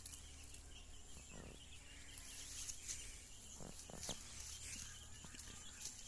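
Faint, scattered peeps of young chickens over a quiet outdoor background, with a few soft knocks.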